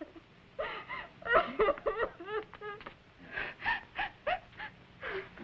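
A person's voice making wordless sounds: a string of short, pitched cries and gasps in quick bursts, with no words.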